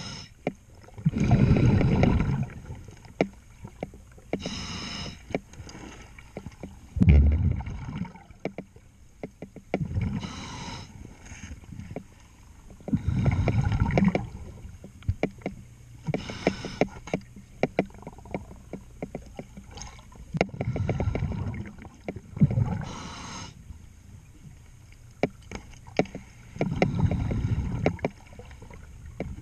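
Underwater, a scuba diver's exhaled breath rushes out of the regulator as bubbles every three to four seconds. Between the breaths come many short, sharp clicks and scrapes from cleaning the boat's hull.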